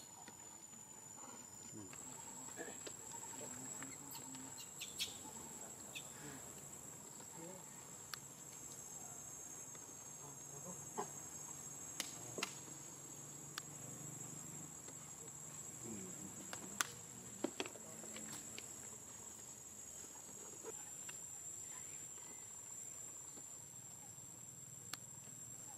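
Insects trilling in one steady high-pitched drone, with scattered sharp clicks.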